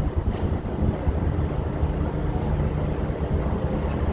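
Steady low rumble and wind noise inside a Disney Skyliner gondola cabin travelling along its cable.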